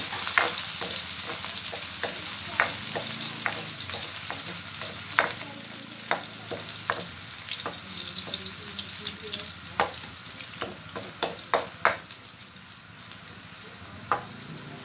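Garlic and ginger sizzling in hot oil in a steel wok, stirred with a coconut-shell ladle that scrapes and taps against the pan in irregular sharp clicks.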